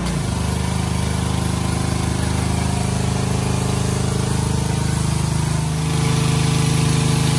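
Gas pressure washer engine running steadily; its pitch drops slightly right at the start, and it gets a little louder with more hiss about six seconds in.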